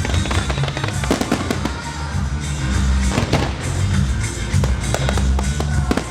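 Fireworks shells bursting in rapid succession with crackling effects, over a song playing on loudspeakers for the synchronised display.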